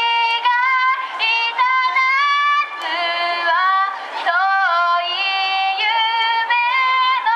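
Girls' high voices singing a melody in held notes, stepping from pitch to pitch with short breaks between phrases.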